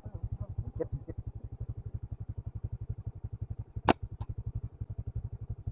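Small engine running with an even, steady putter of about a dozen beats a second. A single sharp click about four seconds in is the loudest sound.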